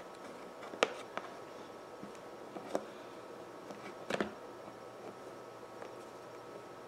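Lego pieces being handled and pressed together: a few scattered light plastic clicks and taps, the loudest cluster about four seconds in.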